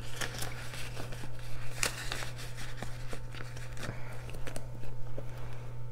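Paper bills and a clear plastic binder pouch rustling and crinkling as cash is slipped into the pouch, with quick crackles that thin out about three seconds in, over a steady low hum.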